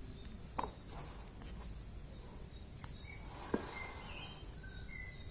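Two sharp clicks about three seconds apart from a handheld iPhone 8 being turned and handled, over a steady faint background with a few short, high bird chirps in the second half.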